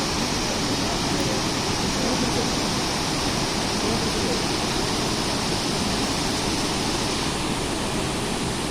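Steady, dense rush of a large waterfall, the constant noise of heavy water falling and churning, with the hiss dulling slightly about seven seconds in.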